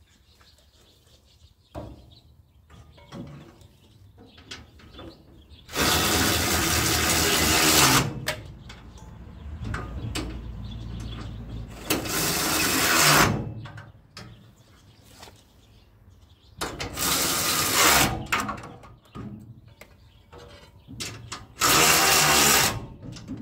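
A power tool running bolts in to fasten a radiator support, in four bursts of a second or two each, with quiet handling noise between them.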